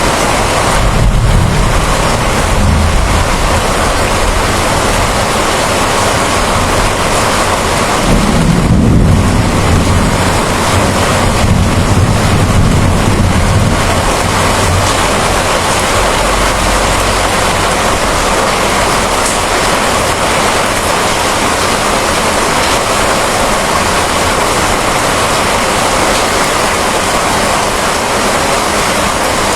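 Steady heavy rain with low rolling thunder, which rumbles twice: near the start and again for several seconds about a third of the way in.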